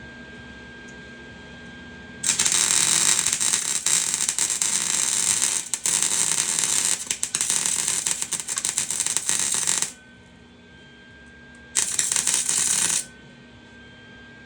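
Electric welding arc crackling in two runs: a long one of about seven and a half seconds, briefly broken near its middle, then a short burst of about a second near the end.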